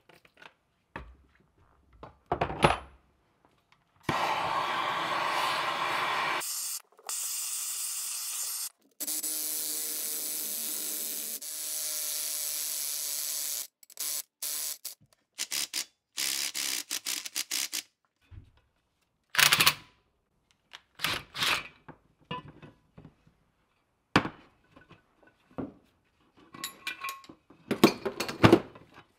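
Removing the cast hand wheel of a Wright screw hoist with a jaw puller: a loud steady mechanical noise in three stretches of a couple of seconds each over the first half, then scattered clanks and knocks of steel tools on the bench.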